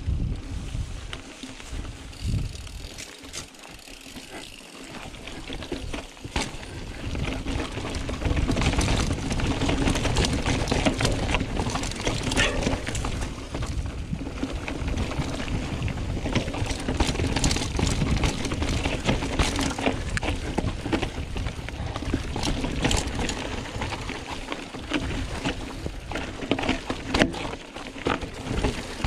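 Mountain bike ridden over forest singletrack: tyres rolling on dirt and roots with constant rattles and knocks from the bike over bumps. It gets louder about a quarter of the way in as the ride speeds up over rougher ground.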